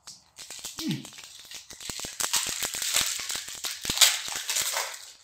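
Rustling and crinkling of a booster pack's foil wrapper and cards being handled, with many quick small clicks, starting about half a second in.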